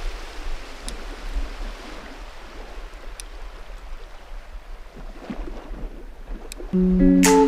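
Wind rushing over a bike-mounted GoPro's microphone while riding, a steady noisy rush with a deep rumble and a few faint ticks. Near the end, guitar music starts.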